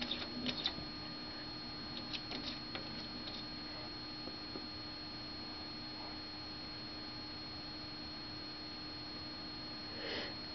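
Steady faint electrical hum, with light clicks of a cat's paw tapping the window glass in the first few seconds and a brief soft sound near the end.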